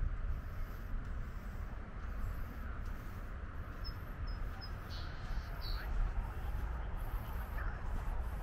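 Outdoor ambience: a steady low rumble under a faint, even murmur, with three short high chirps about four seconds in.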